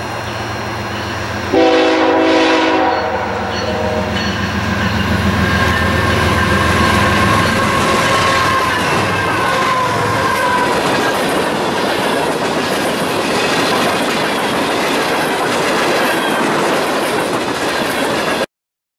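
Diesel freight locomotive sounding one short horn blast, a chord of several tones, about two seconds in. It then passes close, with the steady rumble and clickety-clack of its wheels and freight cars over the rails and a faint falling squeal partway through. The sound cuts off abruptly near the end.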